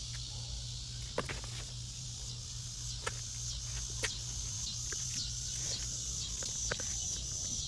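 Steady high chirring of crickets over a low steady hum, with a few scattered light clicks and taps.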